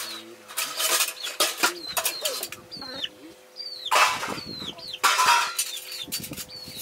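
Birds calling: many short high chirps that fall in pitch, with a few loud rustling bursts, the loudest about four and five seconds in.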